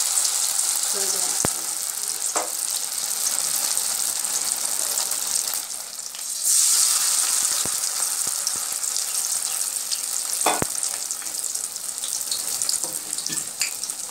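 Flour-battered stuffed kakrol (spiny gourd) pieces sizzling as they deep-fry in hot mustard oil in a kadai. The sizzle dips briefly and swells again about six seconds in, as a fourth piece goes into the oil, with a few clicks scattered through.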